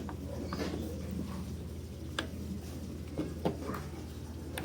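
A few light, scattered clicks and taps from small parts being handled, over a steady low hum.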